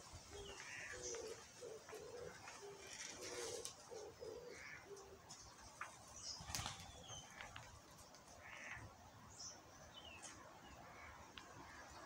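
A dove cooing faintly, a run of low repeated notes over the first five seconds, with scattered thin high chirps of small birds throughout. A single sharp click sounds about six and a half seconds in.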